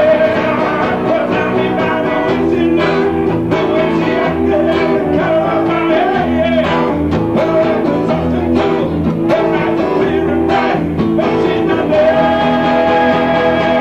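Small band playing live: acoustic bass guitar and hollow-body electric guitar under a male lead vocal. A high note is held at the start and again near the end.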